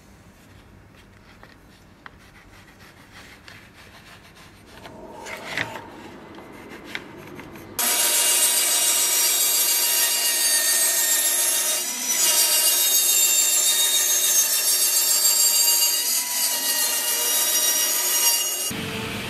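Quiet handling of wood, then a bandsaw cutting a wooden board. The sawing is a loud, steady high whine over a hiss; it starts suddenly about eight seconds in and stops abruptly near the end.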